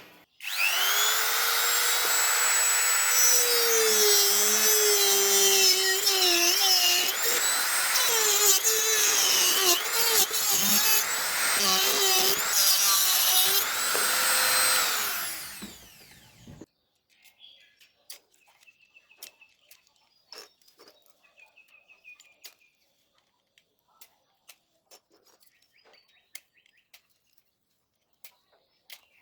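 A small high-speed power tool runs for about sixteen seconds, its pitch dipping and recovering again and again as it bites into material, then winds down and stops. Faint clicks and taps follow.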